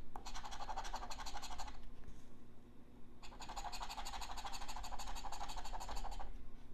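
A scratch-off lottery ticket being scratched with a scratching tool: fast back-and-forth scraping of the coating in two runs, with a pause of about a second and a half between them.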